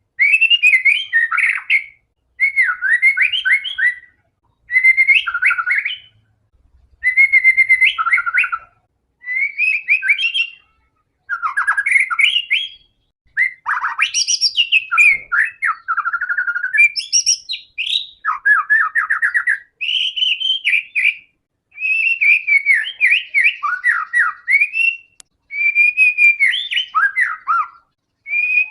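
White-rumped shama (murai batu) in full song: a string of loud, varied whistled phrases with notes sweeping up and down. Each phrase lasts a second or two with short pauses between, and the song runs almost unbroken through the middle.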